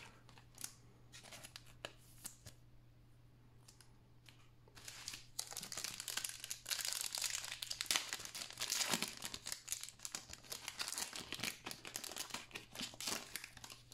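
Foil wrapper of a Panini NBA Hoops trading card pack being torn open and crinkled by hand. A few light handling clicks come first, then dense tearing and crinkling starts about five seconds in and goes on to the end.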